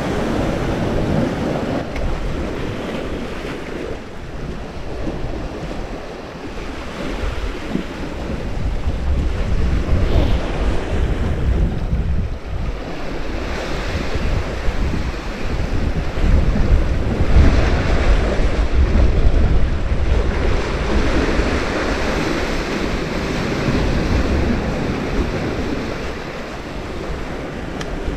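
Sea waves washing and foaming against shore rocks, swelling and easing in several surges, with wind buffeting the microphone as a low rumble that is strongest a little past the middle.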